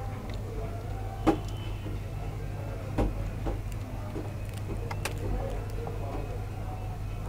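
Scattered clicks and knocks of LED TV panel parts being handled and fitted back together by hand, the sharpest about a second in, over a steady low hum.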